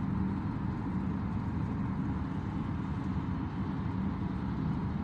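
Steady low road and engine noise inside a car's cabin while cruising on the freeway in sixth gear on cruise control.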